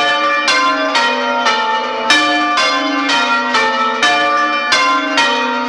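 A ring of church bells being rung in sequence, open (without muffles), heard close up in the tower. Each bell strikes about every half second and rings on under the next.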